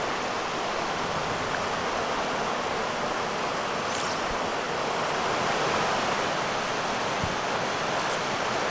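Steady rushing of a fast-flowing mountain river over rocks and riffles.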